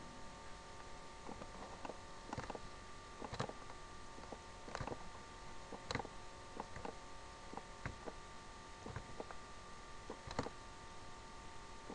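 Computer mouse clicking, scattered single clicks at irregular intervals, over a faint steady electrical hum.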